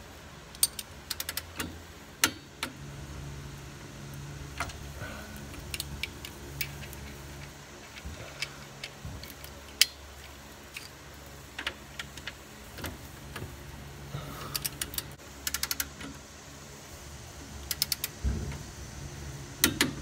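Ratcheting torque wrench and socket on transmission mount bolts: sharp metallic clicks, some single and some in quick runs, with clinks of the tool against the bolts. A steady low hum runs underneath.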